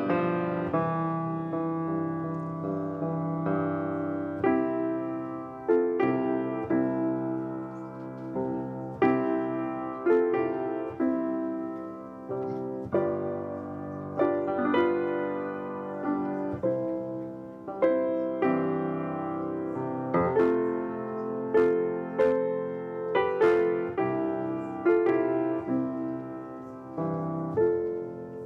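Solo piano playing a slow tune, chords struck every second or two and left to ring and fade.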